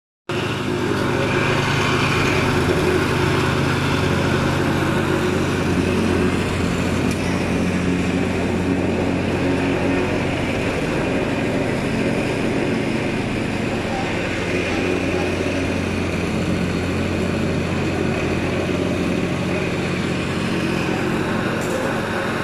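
Petrol-engined vibratory plate compactor running steadily as it tamps the ground: a constant, unbroken engine drone.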